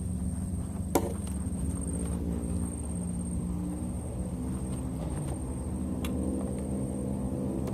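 An engine running, its pitch drifting slowly over a steady low rumble, with a sharp click about a second in and another near six seconds.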